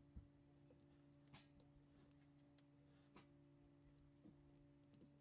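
Near silence, with a few faint, sparse clicks and taps of small plastic parts and flex cables being handled and pressed in inside a game controller.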